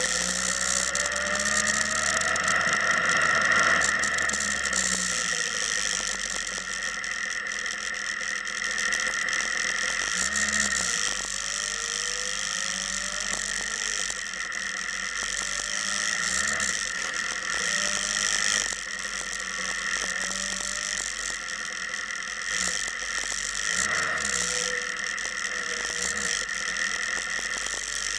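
Motorcycle engine running, its revs rising in short pulls near the start, about eleven seconds in and again about twenty-four seconds in.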